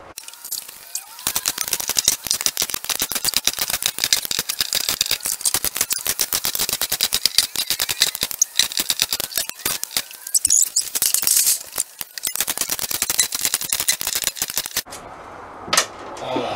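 Cordless impact driver hammering on screws in a school bus's sheet-metal ceiling, a fast metallic rattle in long runs with short pauses, stopping shortly before the end.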